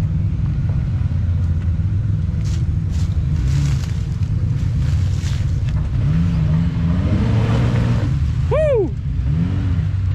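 Off-road vehicle engines running steadily at a slow crawl as a Jeep Wrangler works its way down over rocks, a low rumble throughout. A short squeak rises and falls in pitch about eight and a half seconds in.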